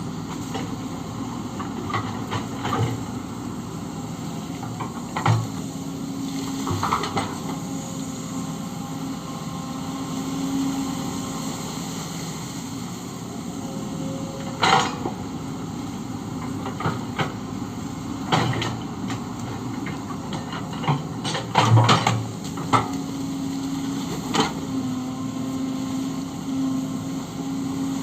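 Kobelco SK130 excavator's diesel engine running steadily as it works, with scattered sharp metallic clanks and knocks from the digging machine, the loudest cluster about three-quarters of the way through.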